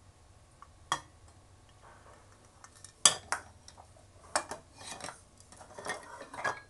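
Metal kitchenware clinking and knocking around a stainless steel cooking pot: one sharp clink about a second in, then a run of clinks and short scrapes from about three seconds in until near the end.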